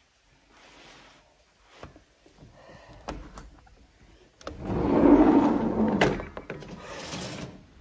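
A glass terrace door being opened: a couple of sharp handle clicks, then a louder rubbing, rushing sound for about a second and a half as it moves, ending with a click.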